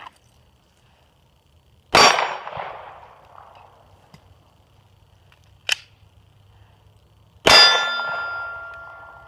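Two 9mm pistol shots from an H&K P30L about five and a half seconds apart, each with a steel target struck; after the second, the steel rings on for about two seconds. A sharp metallic click comes between the shots.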